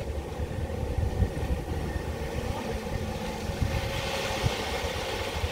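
Nissan Y62 Patrol driving along a rough four-wheel-drive track: a steady low rumble from the vehicle with frequent small jolts. A hiss builds up from about three and a half seconds in.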